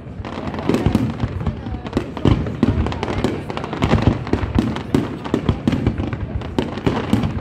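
Aerial fireworks display: shells bursting in quick succession, a dense run of overlapping bangs that does not let up.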